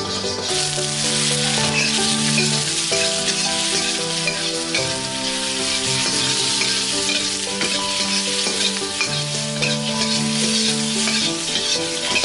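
Minced garlic and then raw shrimp sizzling in hot oil in a wok, stirred and scraped with a spatula; the shrimp go in partway through and the frying carries on steadily.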